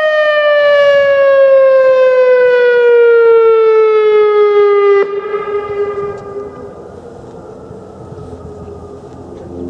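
Whelen 2016 civil defence siren sounding a single loud tone that slowly falls in pitch, then cuts off abruptly about five seconds in. A faint trace of the tone lingers for a moment before only low wind noise is left.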